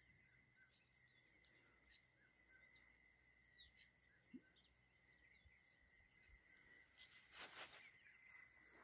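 Near silence: faint outdoor ambience with a steady thin high tone and scattered faint chirps, then a brief louder rustle about three-quarters of the way through.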